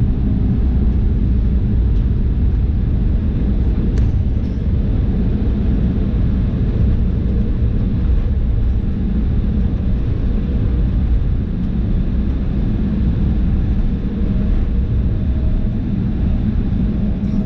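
Steady low rumble inside a Boeing 787-8 airliner cabin, with a constant hum underneath: engine and airflow noise.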